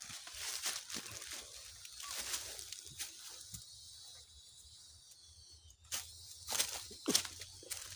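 Rustling and crackling of dry leaves and twigs: scattered short crackles, the loudest about six to seven seconds in.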